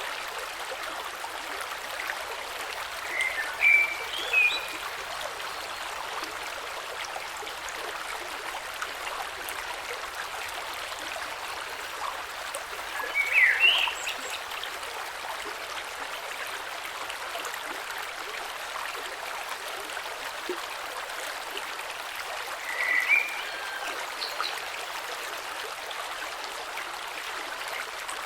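Gentle creek flowing steadily over stones. A brief chirping call comes through three times, about ten seconds apart, each louder than the water.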